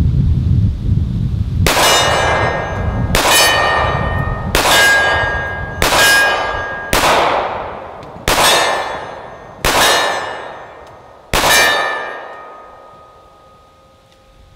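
Eight .45 ACP shots from a SIG P220 pistol, about one every second and a half, each followed by the ringing clang of a struck steel target that fades away after the last shot.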